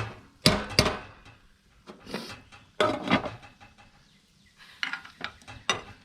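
A metal utensil clanking against a cooking pan: a scattering of sharp knocks, each with a short ring, as food is moved around the pan.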